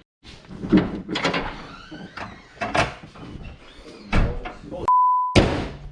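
Several knocks and thumps from a car door and a person getting into the car. About five seconds in, a half-second pure beep tone plays with all other sound cut out: an editing bleep laid over a word.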